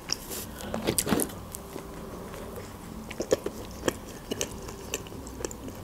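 Close-miked chewing of a mouthful of shawarma, with scattered soft, wet mouth clicks.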